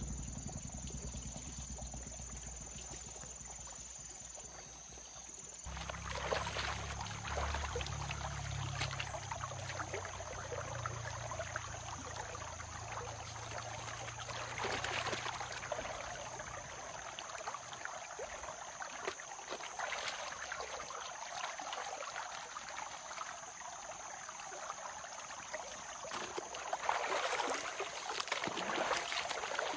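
Shallow river flowing, with repeated splashing and dripping as clothes are scrubbed and rinsed in it and a wet cloth is lifted out, water pouring off it; the splashing is loudest near the end.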